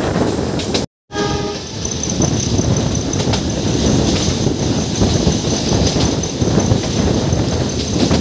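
Meter-gauge passenger train running, heard from a coach doorway: a steady rumble and rattle of the coaches on the track. About a second in, the sound drops out briefly, then a short horn note fades away. A faint high-pitched whine runs through the rest.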